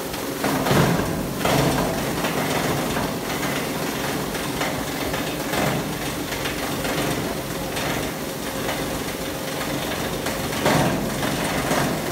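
PET film grinder (plastic granulator) running with a steady hum while PET film is cut by its rotor knives, giving irregular louder bursts of cutting noise, the strongest about a second in and near the end.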